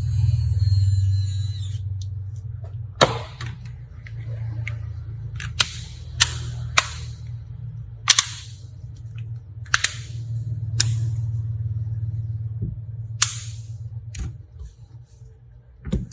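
A steady low hum with about eight sharp clicks at irregular intervals, and a short high whine at the start.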